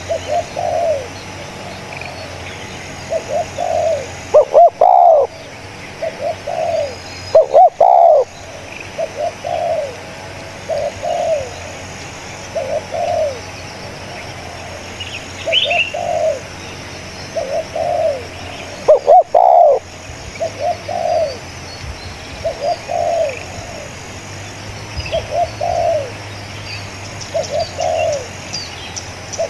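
Spotted dove (tekukur) cooing, phrase after phrase of low, rounded coo notes. Three of the phrases are much louder than the rest. Faint high chirps from other small birds come in now and then.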